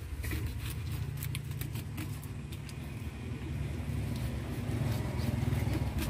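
Knife clicking and scraping against a tuna and the wooden cutting board, with scattered light clicks mostly in the first couple of seconds, over a steady low rumble.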